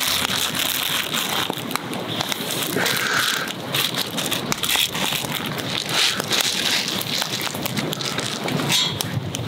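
Wood fire crackling with many small irregular pops, over a pot of water at a rolling boil, with some plastic-bag crinkling as noodles are tipped into the water.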